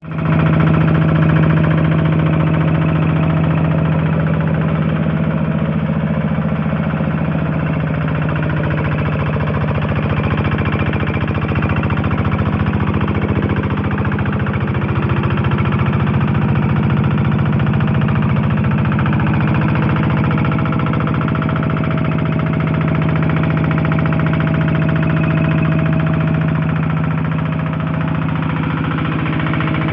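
Kubota NS100 single-cylinder diesel engine driving a 4-inch water pump, running at a steady speed with an even hum.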